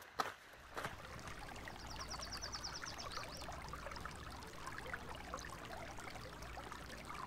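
Shallow creek trickling and burbling steadily over stones. There are a couple of footsteps in the first second, and a rapid high trill of about ten notes a second comes in briefly about two seconds in.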